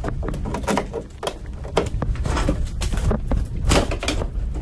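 Irregular scrapes and clinks of pliers working along the riveted aluminum edge of a boat's deck, several a second, over a steady low rumble.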